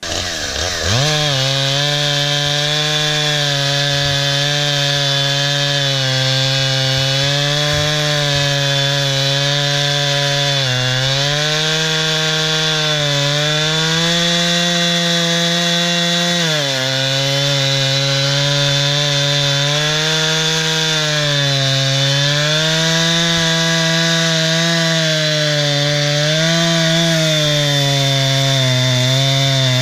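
Two-stroke gasoline chainsaw revving up and then running at full throttle as it cuts through a fallen log. Its pitch sags and recovers several times as the chain bites into the wood under load.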